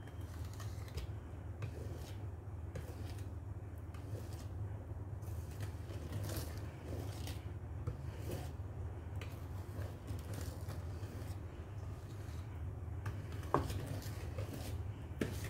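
Wire whisk beating thick brownie batter in a metal bowl: repeated scraping and clinking strokes against the bowl, with a sharper knock near the end, over a steady low hum.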